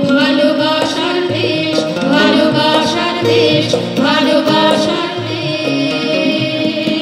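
A group of women singing a Bengali song together, accompanied by harmonium and tabla.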